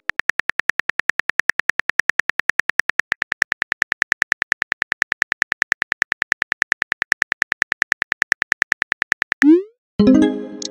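Synthetic phone-keyboard typing sound effect: rapid, evenly spaced clicks, about eight a second. They stop about nine and a half seconds in with a short rising swoosh as the message is sent, followed by a brief pitched notification tone.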